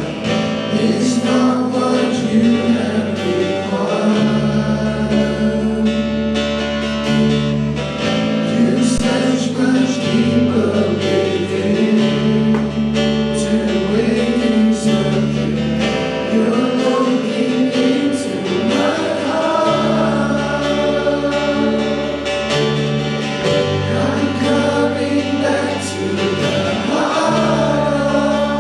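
Congregation singing a worship song together, accompanied by instruments with a steady bass line and guitar.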